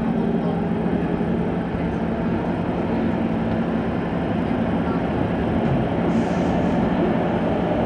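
Kawasaki C151 metro train heard from inside the carriage while running through a tunnel: a steady rumble of wheels on rail, with a low hum that fades out about halfway through.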